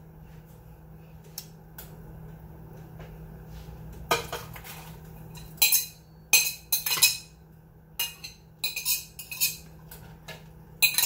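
A metal fork scraping and clinking against a plate as shredded carrots are pushed off it into a stockpot: a string of sharp clinks and scrapes starting about four seconds in, over a low steady hum.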